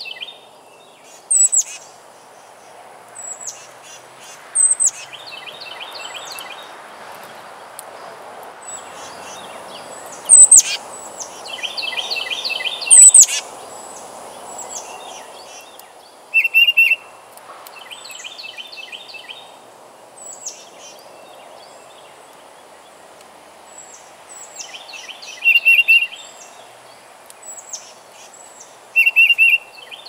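Wild songbirds calling at a backyard feeder: short rapid chattering trills that repeat every few seconds, with sharp high notes that slide downward between them. A faint steady rush lies underneath.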